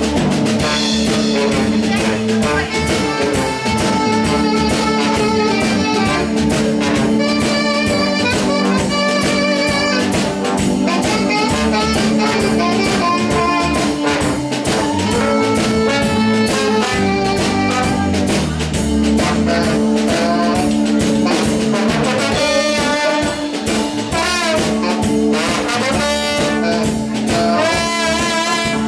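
Loud live band music: a drum kit keeps a steady beat under a sustained, bending lead melody with a brassy, jazzy sound.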